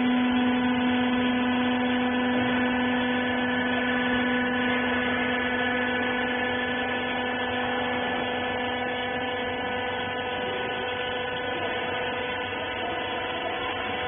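Wiper rag baler's hydraulic power unit running: a steady electric motor and pump hum with several fixed tones, the strongest and lowest of which weakens after about nine seconds.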